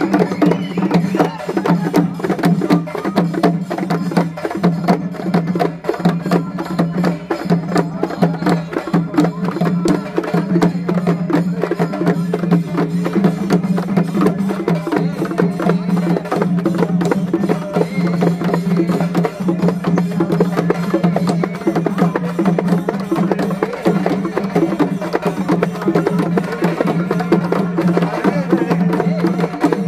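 Traditional Tamil temple-festival drumming: a fast, dense drum rhythm played over a steady low drone.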